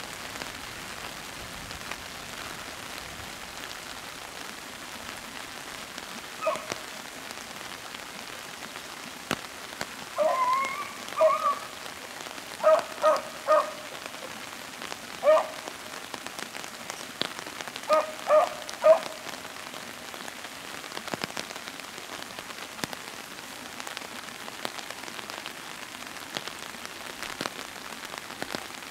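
Steady rain falling on the foliage, with beagles barking in short clusters through the middle, the hounds giving tongue on a rabbit's trail.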